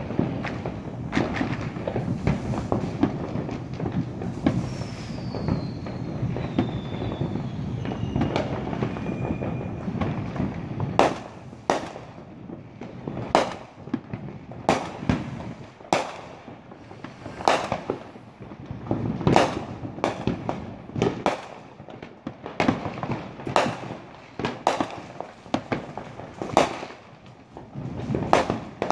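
Fireworks bursting: a dense run of overlapping bangs and crackle for the first ten seconds or so, with a long falling whistle in the middle of it. After that come separate sharp bangs about one a second.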